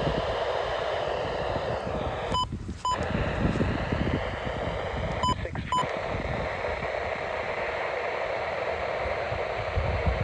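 Weather radio receiver hissing with static while wind buffets the microphone, interrupted twice by a pair of short electronic beeps about half a second apart, the static dropping out between the beeps of each pair.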